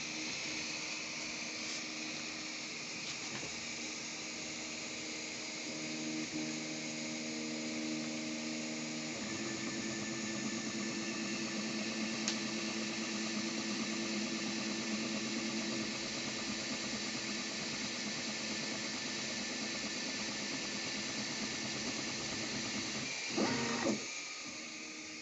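Anet A6 3D printer printing a PLA part: its stepper motors whine in steady tones that change pitch as the print head changes moves, over a steady hiss. A brief louder noise sounds near the end.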